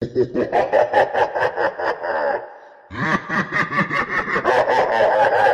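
Evil laugh sound effect: a voice cackling in fast, repeated bursts, in two bouts with a short breath-like gap between them about two and a half seconds in.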